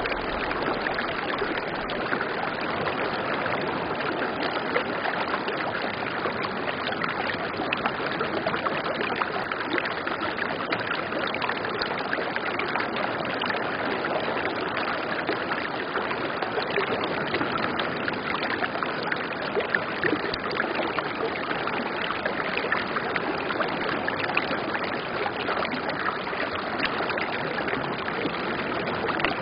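Shallow stream flowing fast over rounded stones, a steady rush of water with many small splashes.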